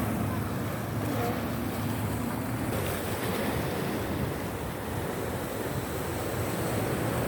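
Sea waves washing in steadily, with wind rumbling on the microphone.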